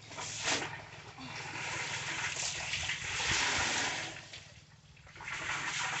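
Water pouring and splashing back into a basin of soapy water as a soaked garment is lifted and wrung out by hand. The water is heaviest for the first few seconds, eases off, then pours again near the end.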